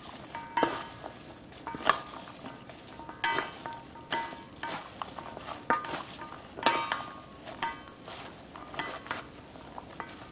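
Chopsticks and a metal spoon tossing a wet shredded apple and carrot salad in a stainless steel bowl: uneven clinks against the bowl, about one a second, each with a short metallic ring, over a soft rustle of the dressed salad.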